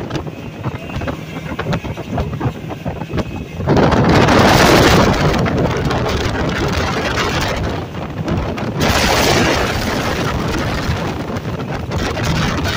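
Center-console boat running across open water: a steady engine drone under heavy wind buffeting on the microphone, which rushes louder about four seconds in and again about nine seconds in.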